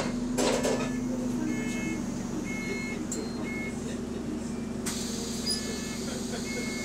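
Double-decker bus standing still with its engine and cooling fan running: a steady low drone. Short high electronic beeps repeat over it every second or so.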